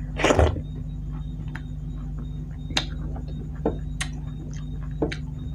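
Close-miked eating by hand: a loud wet smack as a handful of rice and curry goes into the mouth, then a few sharp mouth clicks while chewing. A steady low hum runs underneath.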